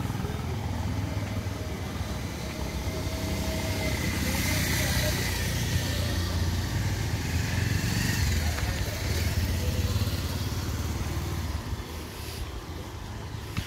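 Road traffic: a motor vehicle engine running close by on the road, with a steady low rumble. It falls away about twelve seconds in.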